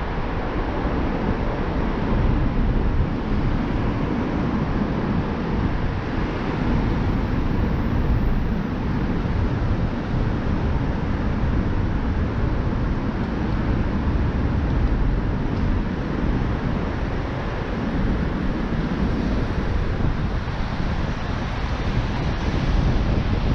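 Wind rumbling on an exposed microphone, a steady low noise with the hum of slow-moving traffic under it.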